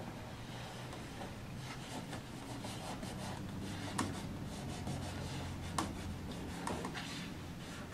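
Fingertips rubbing and pressing a thin card cladding strip onto glued model roof trusses, with a few small clicks, the clearest about 4 and 6 seconds in. A low steady hum runs underneath.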